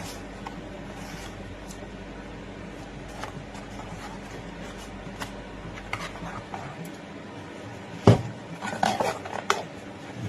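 Replica Makarov airsoft pistol being handled: scattered light clicks over a steady background hum, then one sharp loud snap about eight seconds in, followed by a few quick clicks and rattles.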